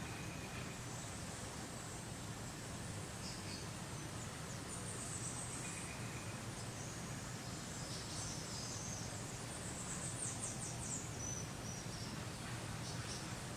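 Outdoor nature ambience: a steady hiss and low hum, with scattered high chirps from small creatures and a short rapid trill about ten seconds in.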